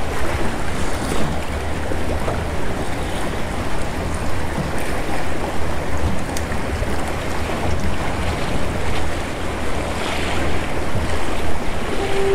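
Choppy sea water sloshing and lapping, with wind on the microphone. Near the end a lighthouse foghorn starts a steady low horn tone.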